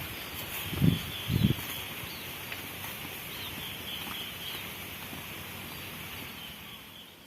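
Rural field ambience: small bird chirps over a steady high-pitched hiss, with two dull thumps about a second in.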